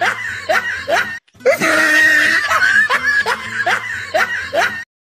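Laughter, in the manner of a comedy laugh-track sound effect, breaking off briefly about a second in and then starting again; it cuts off suddenly just before the end.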